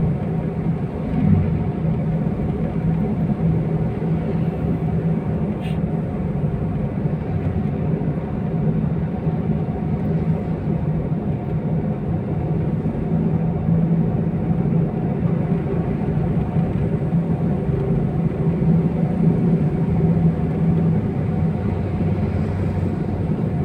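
Steady car cabin noise while driving: a constant low engine hum and road rumble heard from inside the moving car.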